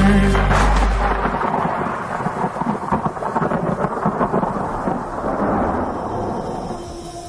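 Thunder-and-rain noise: a low rumble under a steady hiss for about the first second and a half, then the hiss alone, slowly fading.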